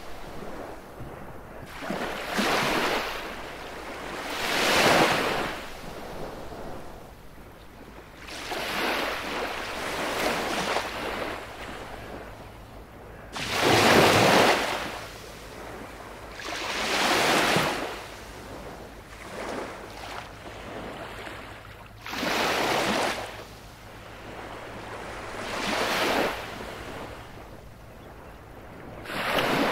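Baltic Sea waves breaking on a beach one after another. Each is a rush of surf that swells and fades, coming about every three to four seconds.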